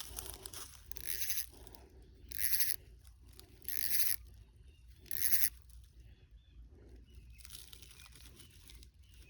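Footsteps crunching and scraping on a sandy creek bank: four slow steps about a second and a half apart, then quiet outdoor background.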